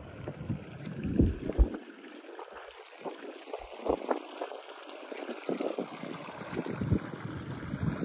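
Shallow creek water running and gurgling over sandstone rock, with a few short low bumps scattered through.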